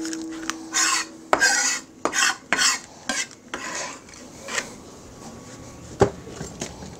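Kitchen utensil sounds: a metallic ring that fades over the first second or so, then a series of short scrapes of a kitchen knife, and a sharp knock about six seconds in.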